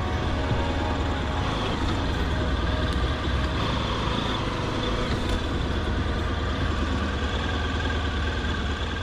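Honda VFR1200F's V4 engine running steadily at low revs, heard from a helmet-mounted camera.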